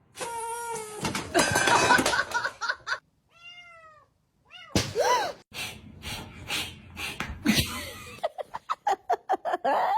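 A domestic cat meowing several times, drawn-out calls that rise and fall in pitch, with brief silences between them and a run of short sharp noises near the end.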